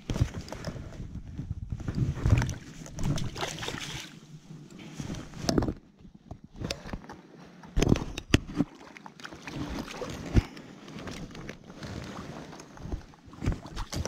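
Water splashing and sloshing with rustling and handling noises as a netted cutthroat trout is taken from the net and held, with several sharp knocks in the middle. Wind gusts on the microphone during the first few seconds.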